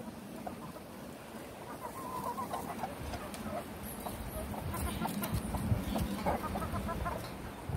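Backyard chickens clucking softly now and then, with a few short calls about two seconds in. A low rumble grows louder in the second half.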